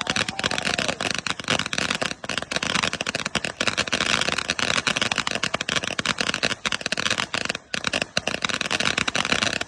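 "Girl's Best Friend" ground fountain firework spraying with dense, continuous crackling.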